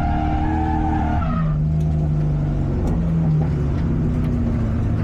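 Lexus SC400 drift car's engine held at high revs, dropping sharply about a second and a half in to a lower, steady note, with tyres skidding through a drift.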